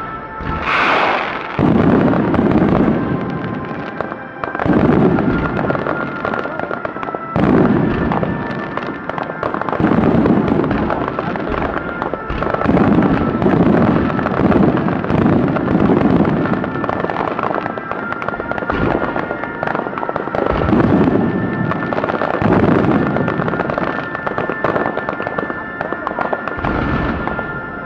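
Fireworks finale barrage: many aerial shells going off together, with booming bursts and crackle coming in loud waves every couple of seconds.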